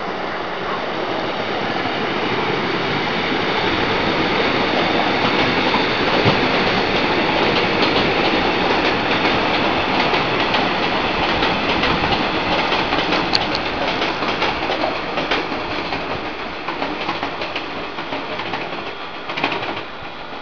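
Passenger train passing on the track below: a rumble that builds, then holds with the clickety-clack of wheels over rail joints, and dies away as the train moves off.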